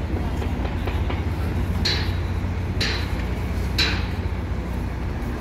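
Outdoor street ambience with a steady low rumble, and three short hissing swishes about a second apart near the middle.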